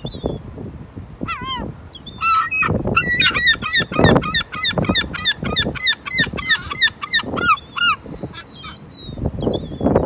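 Herring gull calling: a long run of loud, pitched yelping calls that starts with a few falling cries about a second in, then speeds up to several calls a second before stopping near the eighth second.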